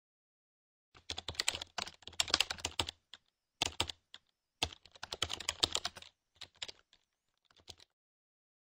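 Computer keyboard typing sound effect: rapid key clicks in several runs of varying length, pausing briefly between lines and stopping near the end.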